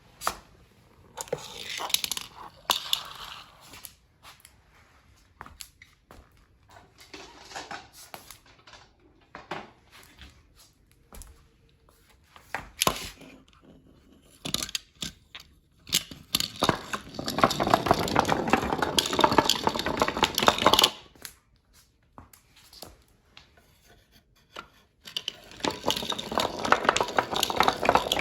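Marbles rolling and clattering down a homemade zigzag wooden marble run, heard as bursts of rapid rattling clicks. The longest and loudest bursts run from about 17 to 21 seconds in and again from about 25 seconds in.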